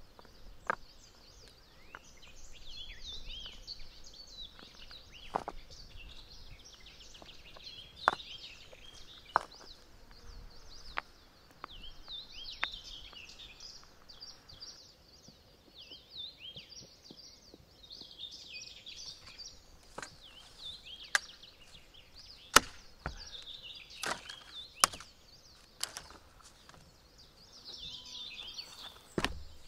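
Irregular sharp chopping knocks on wood, a second or several apart, some much louder than others, with birds chirping and singing throughout.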